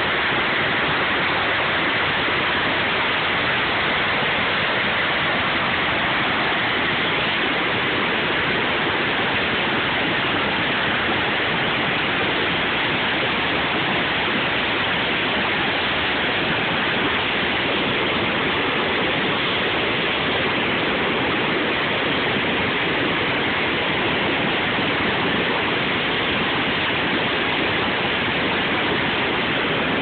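Waterfall: falling water rushing in a loud, steady, unbroken roar of white water.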